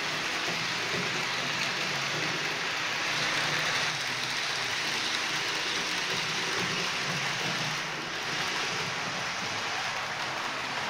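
H0 scale model freight train of tank wagons behind a Vectron locomotive rolling along the track: a steady hiss-like rumble of small metal wheels on the rails, with a faint hum underneath.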